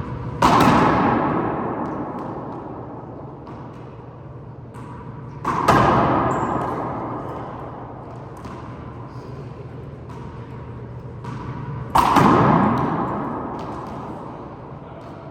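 Three loud bangs about six seconds apart, each ringing out and dying away over two to three seconds, with fainter short taps between them.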